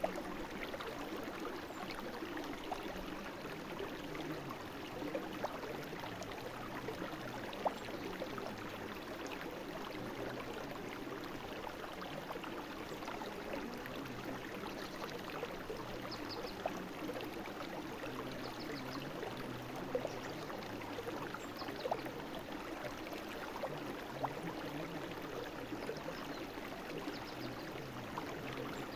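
A small brook flowing and babbling steadily, water splashing over stones with small drips and plinks. A few faint high chirps sound now and then in the second half.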